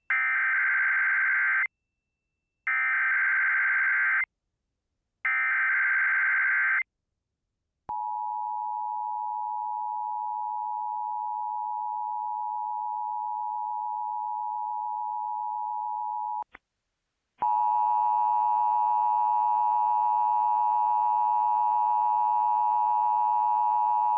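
Start of an Emergency Alert System alert from a Sage EAS ENDEC: three screeching SAME digital header bursts, each under two seconds, about 2.5 seconds apart, then the steady two-tone EAS attention signal for about eight seconds. After a click, a second, buzzier steady alert tone with many overtones begins about 17 seconds in.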